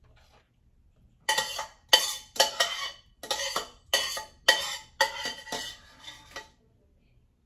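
A metal utensil scraping and clinking against a dish in a quick series of about eight strokes, as food is spread in a layer. The strokes start a little over a second in and stop about a second before the end.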